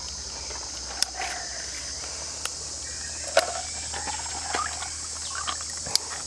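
Steady high-pitched insect chorus, with a few sharp clicks and light rustling as herbs are handled over a wicker basket.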